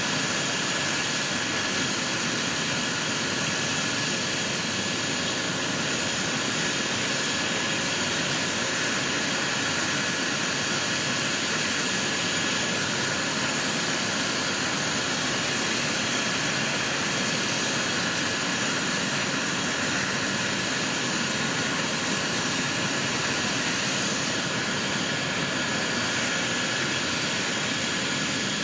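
Medical helicopter's turbine engine running steadily, its rotors turning on the ground, a constant high whine over an even rush.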